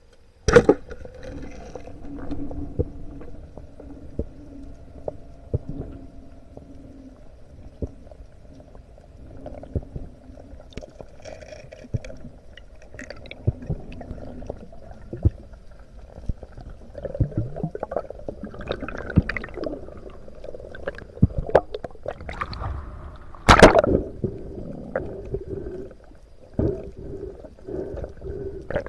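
Underwater sound during a spearfishing dive: gurgling and bubbling water against the camera housing, with many scattered clicks and knocks. A single loud sharp crack comes about 24 seconds in.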